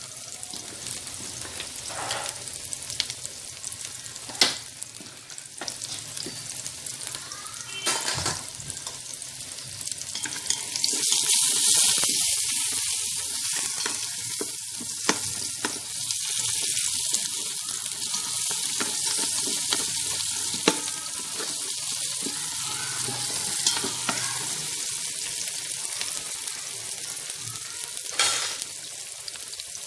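Lemongrass, garlic, shallot and ginger sizzling in hot oil in a stainless steel pot as they are stirred, with occasional sharp knocks. The sizzle swells louder for a few seconds partway through. The aromatics are being fried until golden before the meat goes in.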